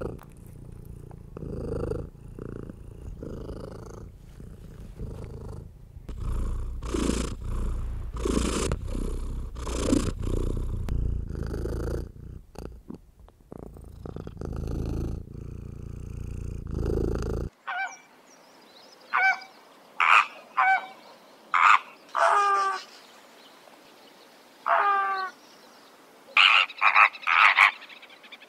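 A domestic cat purring with a low steady rumble, with several louder cries in the middle. It cuts abruptly to a flock of flamingos honking: about ten short, loud, goose-like calls, several in quick succession near the end.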